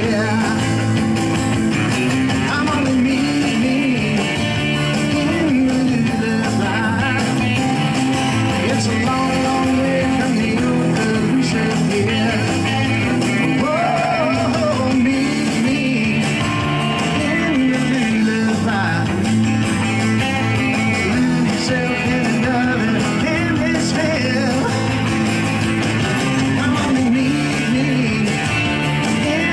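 Rock music played on two electric guitars, with a singer's voice, running steadily throughout.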